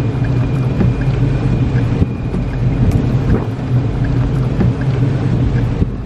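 Pickup truck driving through a storm: a steady engine and road drone under rushing wind, with a few light knocks.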